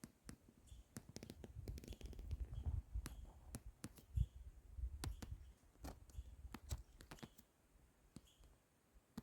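Faint scattered clicks and soft low thumps of handling, as of a phone being moved and touched close to the microphone, busiest between about one and seven seconds in.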